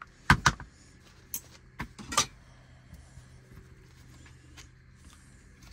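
Plastic housing of a cordless impact driver being handled and worked apart by hand: a handful of sharp clicks and knocks in the first couple of seconds, the loudest about half a second in. After that there is only a faint steady hum.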